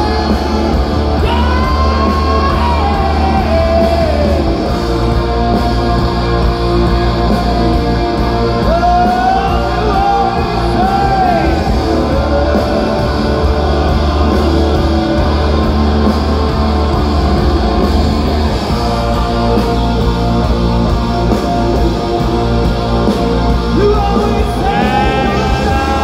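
Rock band playing live, loud: a singer's voice over electric guitars and steady bass.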